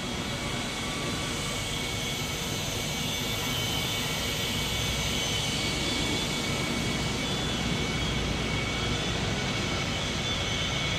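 CNC foam-cutting machine with a looped vertical band knife running: a steady high whine over a low hum, growing slightly louder.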